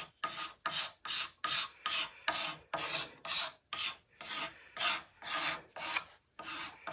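Hand-held curved card scraper drawn in quick, even strokes along a shaped wooden table leg, scraping about two to three times a second as it smooths out the curve.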